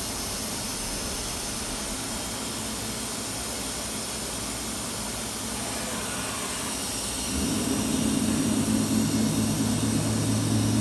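Steady hiss of shop background, then about seven seconds in a louder steady hum with two low tones: the MultiCam 3000 Series CNC router's servo-driven gantry moving as the machine parks.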